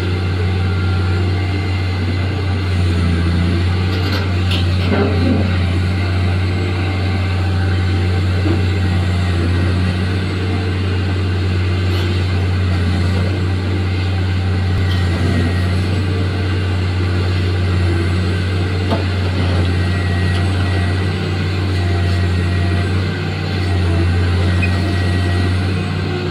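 Diesel engine of a large BEML hydraulic mining excavator running under load as the machine digs into broken rock: a loud, steady deep drone with almost no change.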